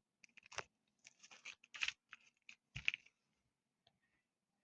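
Faint handling noise: scattered soft rustles and clicks of squishy toys and their plastic packaging being picked up and set down, a little louder about two and three seconds in.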